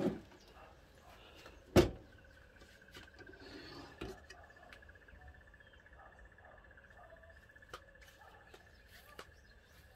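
Scattered knocks and clicks of handling inside a canvas camper tent, the loudest a single sharp knock about two seconds in. A faint steady high trill runs under them.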